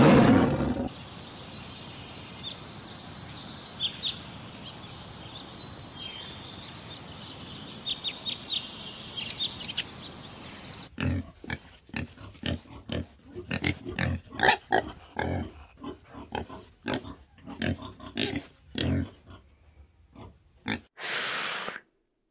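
Wild boars grunting in a rapid run of short, loud grunts lasting about ten seconds, from about halfway in. Before it, the tail of a tiger's roar in the first second, then a steady hiss with faint high chirps. A short hiss comes near the end.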